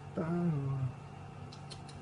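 A man's short exclamation, falling in pitch, with no clear words. Near the end comes a quick run of faint clicks.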